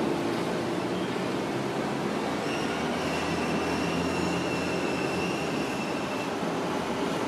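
A streetcar running past with steady running noise; about two and a half seconds in, its wheels squeal in one high, held tone that lasts nearly four seconds and then stops.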